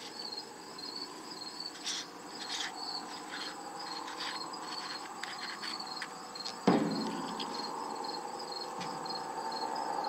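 Quiet handling noise of a machined aluminium battery cover being unscrewed from an illuminated-reticle eyepiece, with light clicks and one sharper click about two-thirds of the way through. A cricket chirps steadily in the background.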